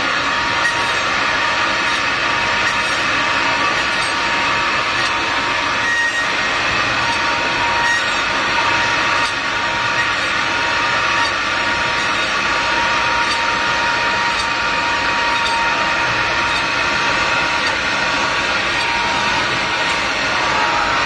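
Automatic through-hole component insertion machine running steadily, a dense mechanical whir with a few steady tones and faint regular ticks about once a second.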